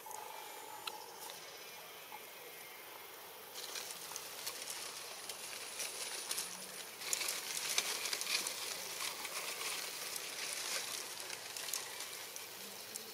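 Leaves and grass rustling and crackling as a young monkey moves and forages through the undergrowth, sparse at first and growing denser and louder about halfway through.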